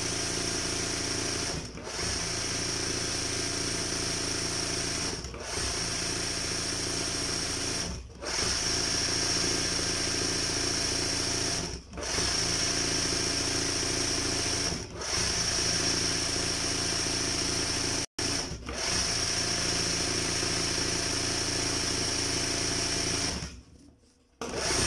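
Electric embroidery sewing machine running in stretches of about three seconds with short stops between them, stitching densely in one spot to fill a petal with thread.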